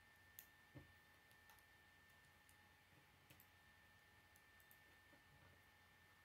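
Faint, scattered clicks of K'nex plastic rods and connectors being handled and snapped together, a few sharp ticks spread over several seconds, with a faint steady high tone underneath.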